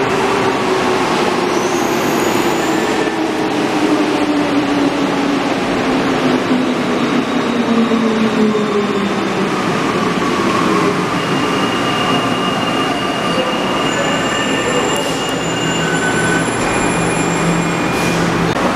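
Santiago Metro NS93 rubber-tyred subway train arriving at a platform and braking to a stop, its cars rumbling past. Its motor whine falls steadily in pitch as it slows, and near the end, once the train has stopped, a few steady high tones and a low hum are left.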